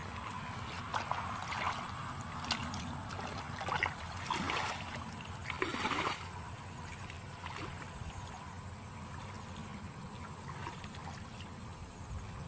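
Hands groping in shallow muddy water, splashing and squelching, with several sharp splashes in the first six seconds. After that come softer sounds of bare feet wading through the mud.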